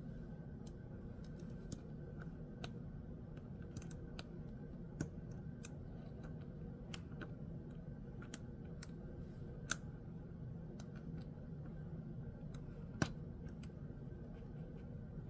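Gao Studio Magnetic Master 2.0 magnetic haptic-coin fidget being handled, its metal magnetic pieces clicking together at irregular intervals, with a few sharper snaps.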